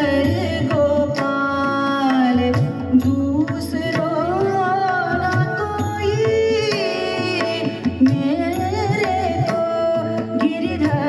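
Indian devotional music: a wavering, ornamented melody over a steady tabla beat.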